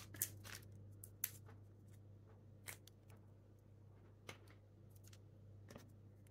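Faint, scattered cracks of brittle sweet tamarind shell being broken and picked off the pods by hand, a sharp crack every second or so, over a low steady hum.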